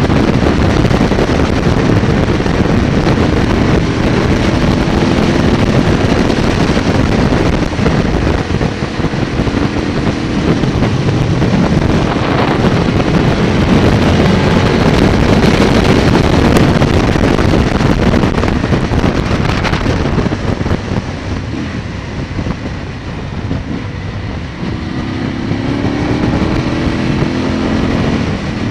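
Aprilia Tuono motorcycle engine at road speed, its note rising under acceleration several times, with heavy wind noise on the microphone. It eases off and goes quieter about three-quarters of the way through, then pulls again near the end.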